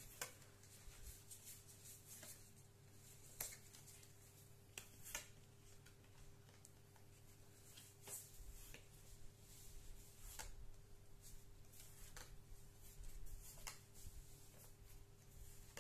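Near silence: a steady low room hum with scattered soft rustles and clicks of Pokémon cards being handled.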